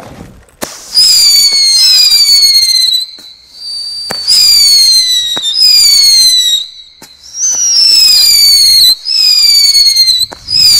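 Weco Blizzard Star whistle-and-light-swirl battery firing its shots. A pop at the first launch, then loud shrill whistles one after another, each sliding down slightly in pitch, with brief lulls about three and seven seconds in.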